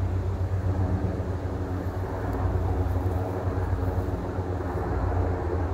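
Two helicopters flying overhead at a distance, their rotors making a steady, deep, rapidly beating throb.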